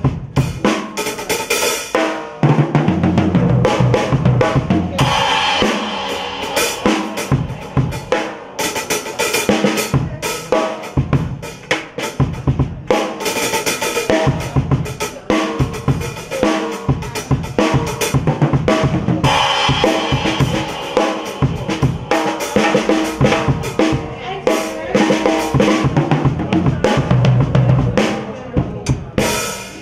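Acoustic drum kit played with wooden sticks: a continuous beat of snare, bass drum and cymbal strikes.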